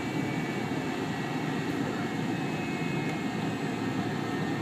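Cabin noise of an MD-82 taxiing: its rear-mounted Pratt & Whitney JT8D jet engines run steadily, heard as a low rumble with a faint high whine.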